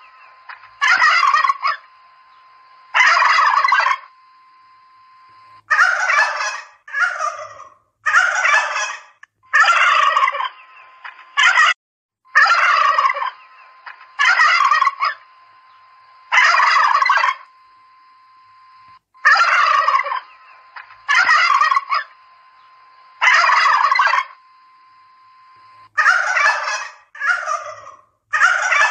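Domestic turkeys gobbling over and over, a loud gobble every one to two seconds, with a faint steady tone underneath.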